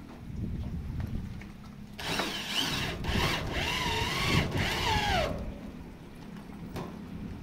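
Handheld power drill driving a screw into a corrugated metal roof sheet. The motor runs for about three seconds in three short bursts with brief breaks, its pitch wavering with the trigger, then winds down in a falling whine as it stops.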